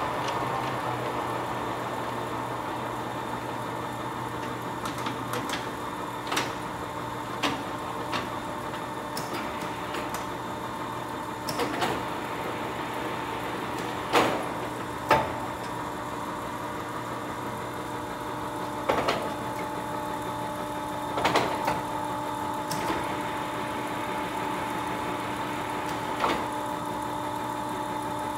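Poreba TPK-80/3M heavy engine lathe running, its 32-inch four-jaw chuck turning: a steady whine from the headstock drive with a lower hum beneath, dropping in pitch at the very start, then holding steady. About eight sharp clacks come at irregular intervals.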